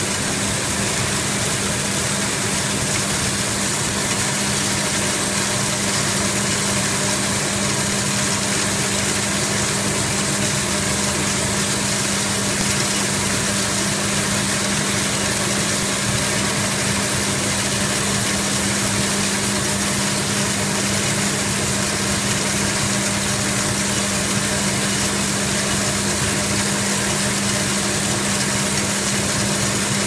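Roller-type shell and clam washing machine running steadily: a constant motor hum with an even hiss over it.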